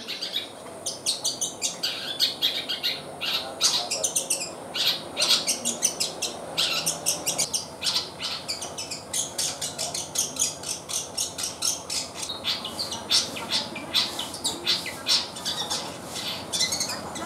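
Juvenile long-tailed shrike (cendet), about three months old, practising its early song: a long, unbroken run of short high chirps, about three or four a second.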